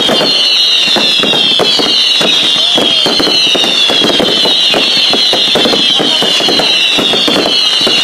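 Fireworks whistling continuously, one whistle after another, each falling slightly in pitch and overlapping the next, over steady dense crackling.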